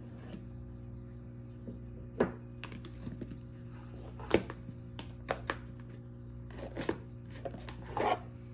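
Scattered taps and knocks of a red Cartier cardboard jewellery box being handled and its hinged inner bracelet box opened, the sharpest tap about halfway through, over steady quiet background music.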